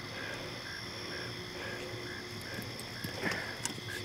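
Night-time chorus of calling insects and frogs: a short call repeats about three times a second over a steady high trill. A few faint clicks come near the end.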